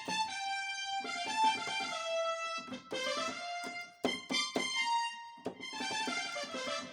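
Digital keyboard playing a slow melody of held notes on its trumpet voice, on the split part of the keys.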